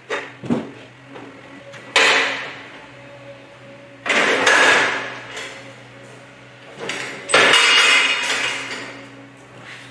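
Metal parts of a drywall panel lift knocking and rattling as they are handled and fitted together: a couple of small knocks, then three loud clanks about two, four and seven seconds in, the last two trailing off in a rattle.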